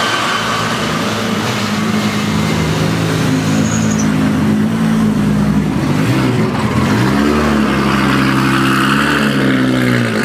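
Highly tuned Nissan GT-R's twin-turbo V6 running at low revs as the car pulls away slowly. Its pitch dips and then climbs about seven seconds in, holds, and falls again near the end.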